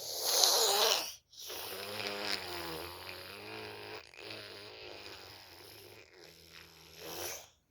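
A small child snoring in her sleep: four long snoring breaths with short breaks between them, the first the loudest.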